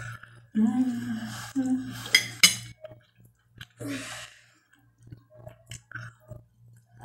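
A person's brief murmured voice in the first couple of seconds, then a short breathy puff, then faint lip smacks and chewing as roast chicken is bitten from the fingers. A steady low hum runs underneath.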